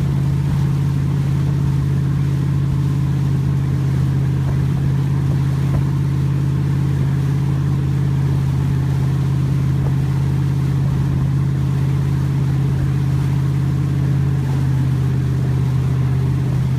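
Tow boat's engine running steadily at towing speed, a constant low drone that neither rises nor falls.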